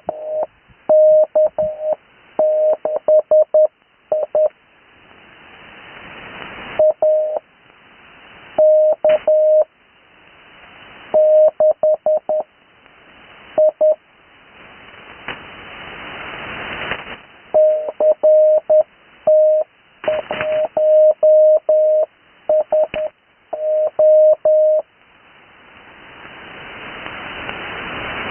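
Morse code (CW) received over the air on the 80 m amateur band: a single steady beep keyed in dots and dashes, sent in short groups with pauses between them. In each pause the receiver's band hiss slowly swells up until the next group cuts in.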